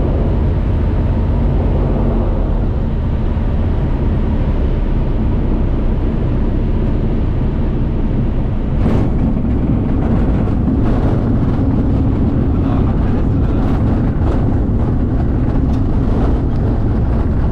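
Single-engine propeller light aircraft heard from inside the cockpit, its engine and propeller running steadily on landing. About halfway through a bump sounds, followed by irregular knocks and rattles as the wheels roll along the rough dirt airstrip.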